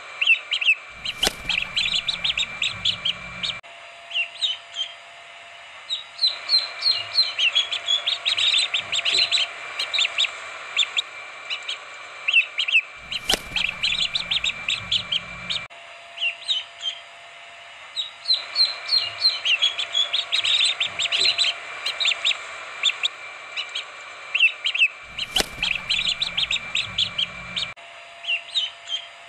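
Many young chicks cheeping in quick, high chirps, a looped recording that repeats about every twelve seconds.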